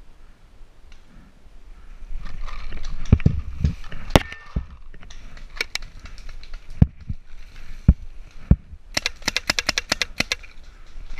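Paintball marker firing: scattered single shots, then a rapid string of about a dozen shots in just over a second near the end. A stretch of rustling starts about two seconds in.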